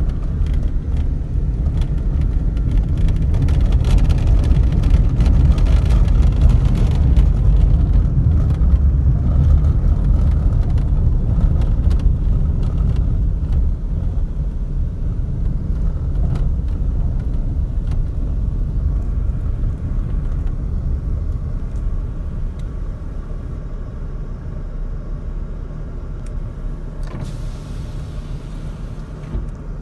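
Vehicle driving on a dirt road, heard from inside the cabin: a steady low rumble of engine and tyres with many small knocks and rattles from the bumpy surface. It is loudest early on and grows quieter over the second half, with a short hiss near the end.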